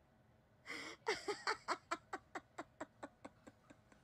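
A woman laughing: a breathy start, then a quick run of short falling laughs, about five a second, that fade away.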